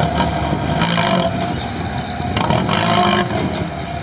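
Hino Dutro dump truck's diesel engine revving in two bursts, each about a second long, as the truck strains bogged in soft, sunken ground.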